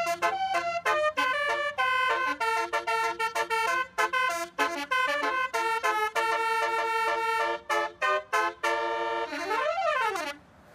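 Basuri-type "telolet" musical bus horn playing a quick melody of short horn notes, ending in one rising-then-falling siren-like sweep before it cuts off suddenly near the end.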